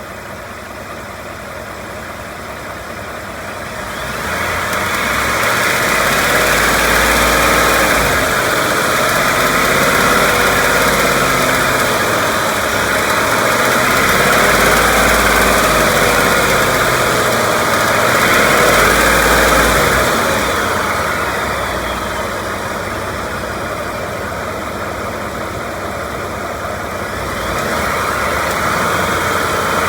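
2018 Ford F-150's 5.0 Coyote Gen3 V8 idling, then revved lightly several times, the pitch rising and falling, with a ticking that shows up only under light revs (about 1,200 to 2,000 rpm) and not at idle; the owner wonders if it is the Gen3 Coyote's known 'BBQ tick'.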